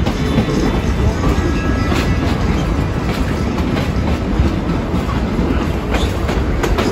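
Vintage passenger train's steel wheels running on the rails, heard from an open car, with a steady rumble and a few sharp clacks over rail joints.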